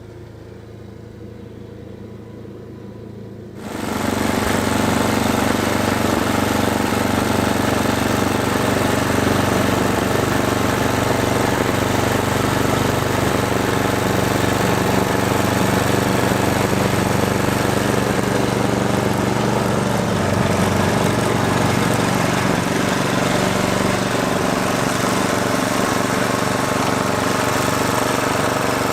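Gas snow blower engine running, quieter at first, then suddenly much louder about three and a half seconds in and running steadily from there.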